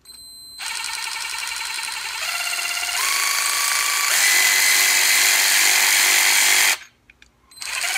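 Harbor Freight Earthquake XT 12-volt 3/8-inch cordless ratchet running free with no load. Its motor whirs faster in several steps as the variable-speed trigger is squeezed further. It stops a little before seven seconds in, then starts again near the end.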